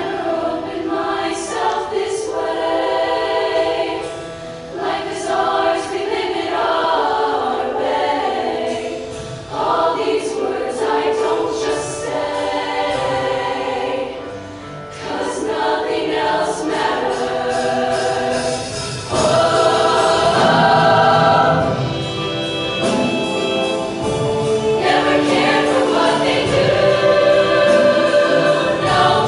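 Girls' show choir singing in harmony, in phrases with short breaks between them, swelling louder about twenty seconds in.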